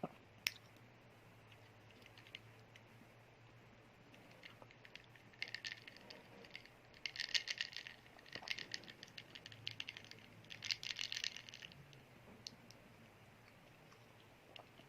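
Crunchy chewing of a cheese stick, heard close up in four crackly spells a few seconds into the clip, after a couple of sharp clicks at the very start.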